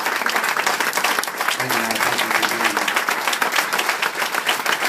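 Audience applauding steadily, a dense patter of many hands clapping, with a voice briefly heard about two seconds in.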